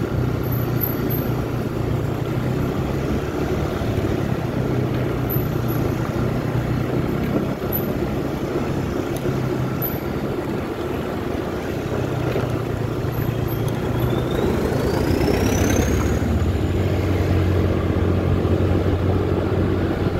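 Scooter engine running at riding speed, with wind and road noise on the rider's microphone as it travels over a rough dirt road. A short rising whine about three-quarters of the way through.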